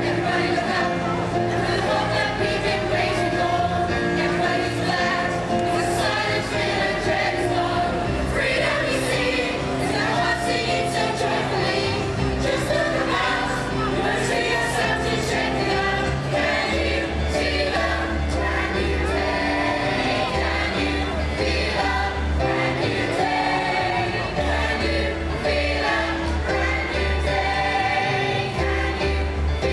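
Amateur pantomime cast singing a show song together over instrumental accompaniment, with a steady stepping bass line.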